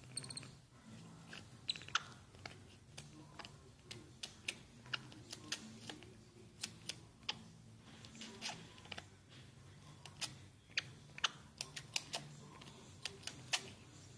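Faint, irregular clicking and smacking from a capuchin monkey's mouth as it grooms newborn puppies, several small clicks a second over a low steady murmur.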